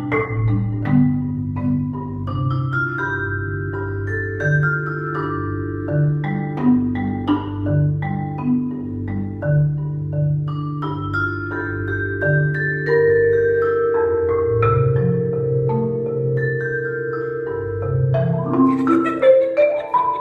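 Marimba played with four yarn mallets: a slow tune of single struck notes over long-held low bass notes, ending in a quick rising run of notes.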